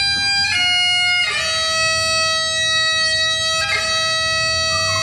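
Two Great Highland bagpipes playing a slow tune: long held melody notes that change a few times, over the steady sound of the drones.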